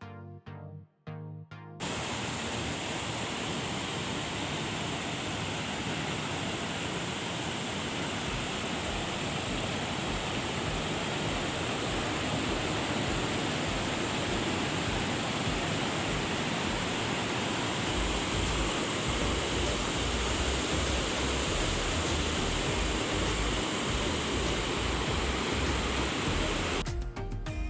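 Ripple Waterfalls in Munnar pouring: a steady, even rush of falling water that cuts in about two seconds in and stops just before the end. A low rumble joins it about two-thirds of the way through.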